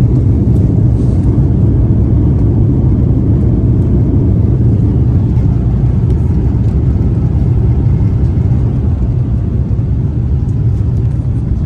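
Airliner cabin noise: a loud, steady low rumble of jet engines and airflow heard from inside the passenger cabin.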